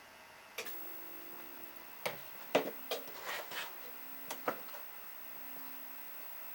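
A handful of short, irregular clicks and knocks, clustered in the middle, over a faint steady hum.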